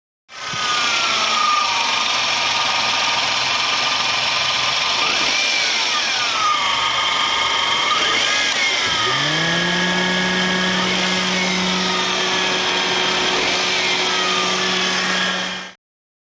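Suzuki Jimny engine running with the bonnet open, a steady mechanical whine whose pitch sweeps up and down several times in the middle, then settles into a steady hum about nine seconds in.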